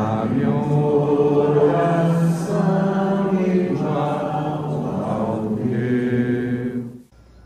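Chant-like vocal music with long held notes over a steady low tone, stopping abruptly about seven seconds in.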